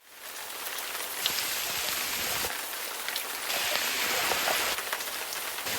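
Falling water: a steady, rain-like patter and hiss, with two brighter, louder stretches, one about a second in and one around the middle.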